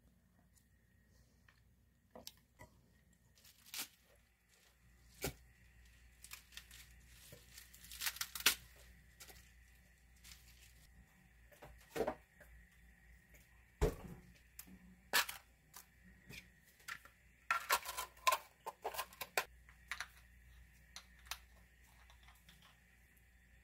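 Food-prep handling sounds: crisp tearing and crackling of fresh lettuce leaves handled in a plastic colander, with scattered light clicks and knocks, densest in a cluster about two-thirds of the way through. A faint steady high whine runs underneath.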